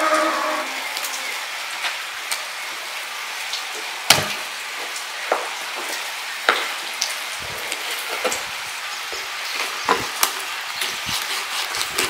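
Kitchen knife cutting raw meat and bone on a wooden cutting board: irregular knocks and taps of the blade against the board, the loudest about four seconds in, over a steady background hiss.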